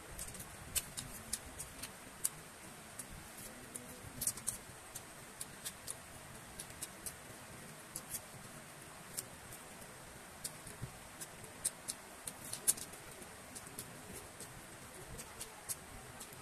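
Close-miked mouth sounds of a person eating: chewing, with irregular sharp clicks and smacks.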